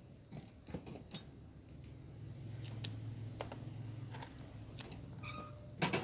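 Light taps and clicks of a cat moving among plastic tubs of dry cat food, with a louder cluster of clicks and knocks near the end as it reaches the kibble. A low steady hum runs through the middle.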